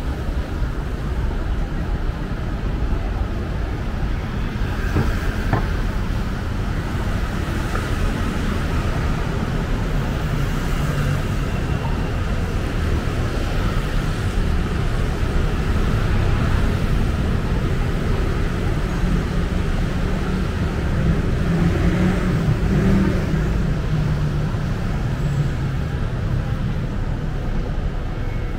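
Busy city street traffic: a steady low rumble of car engines and tyres passing, swelling a little now and then as vehicles go by.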